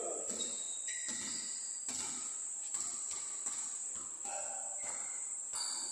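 Steady high-pitched insect chirring, with a few faint knocks in the background.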